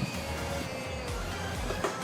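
Background music with held tones over a pulsing low beat, with a short click right at the start and another near the end.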